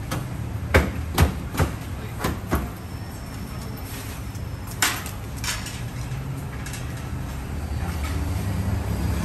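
Sharp plastic clicks and knocks as front grille and bumper trim pieces are handled and unclipped, five in quick succession in the first few seconds and two more about halfway through, over a steady low hum.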